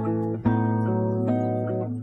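Instrumental intro of a country song: guitar chords strummed and ringing over a steady low note, with a fresh strum about half a second in.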